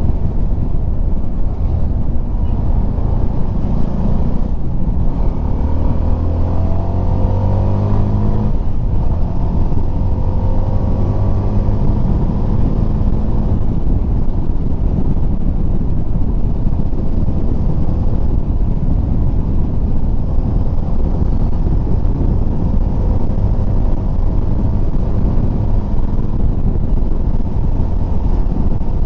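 CF Moto 300SR single-cylinder engine running under way, with a steady low rush of wind and road noise, picked up by a helmet lavalier mic wrapped in cotton, plastic and a deadcat against wind. The engine note rises under acceleration in the first dozen seconds, then settles to a steady cruise.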